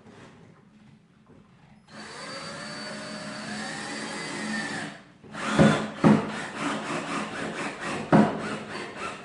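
Cordless drill-driver driving small screws: the motor runs steadily for about three seconds with its pitch rising, then a rapid string of sharp clicks follows, about five a second.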